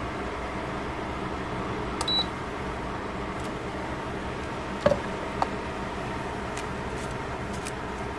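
A lidded pot of vegetables simmering on a burner, giving a steady hiss. About two seconds in there is a click and a short high beep. Near the middle comes a sharp clink with a lighter one just after, as the glass pot lid is handled.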